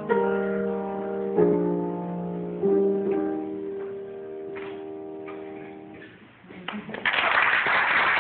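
Piano playing the closing chords of an opera accompaniment, several chords struck and left to ring until they die away. About a second later, scattered claps turn into full audience applause near the end.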